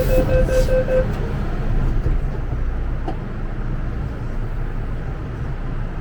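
MTR M-train door-closing warning beeps, a rapid pulsing tone that stops about a second in, over the steady low rumble of the train carriage.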